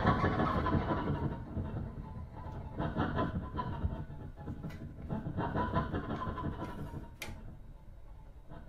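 Violin played with extended technique, the hand rubbing and scraping the strings, picked up by contact microphones and amplified: a dense rattling, rumbling noise with a faint high tone sliding down. It thins out toward the end, with a sharp click near the end.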